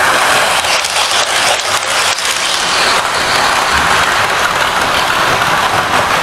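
OO gauge model train running on the layout track: a loud, steady rushing noise from its motor and wheels, with a few short clicks between about one and two seconds in.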